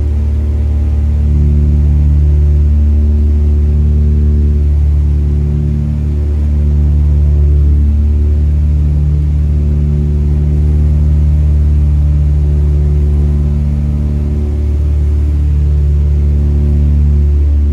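The twin piston engines and propellers of a Britten-Norman Islander, heard inside the cabin in flight on approach. They make a steady, loud, low drone that swells and fades slowly every few seconds.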